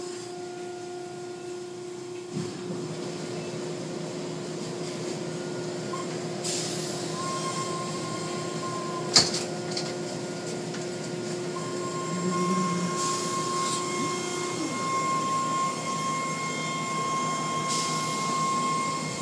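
Car wash machinery running: a steady motor whine and hum, with short bursts of hissing spray and a single sharp knock about nine seconds in.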